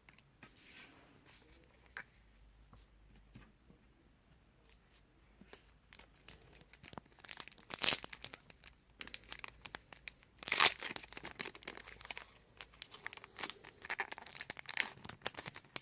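Crinkling and tearing of a foil Pokémon booster-pack wrapper, handled by hand. It is faint at first, then comes in irregular crackles and rips through the second half, loudest about eight and ten and a half seconds in.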